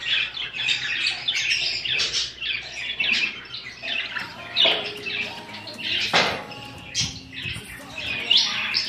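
Many caged budgerigars chattering: a dense, continuous run of short chirps and squawks, with a few longer, louder calls standing out.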